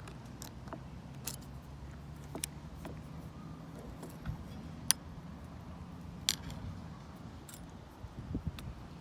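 Small, sharp metallic clicks and taps, one every second or so, from a pick and tension tool working in a vintage Lockwood 570 oval mortise lock cylinder, over a low steady rumble of wind muffled by a jacket covering the microphone.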